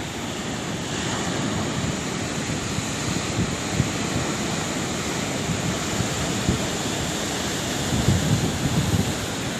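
Sea waves washing in as a steady rush of surf, swelling slightly about a second in, with a few low buffeting gusts near the end.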